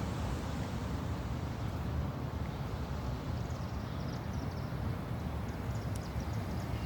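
Steady low rumble of a truck engine idling, with faint light ticks from about three seconds in.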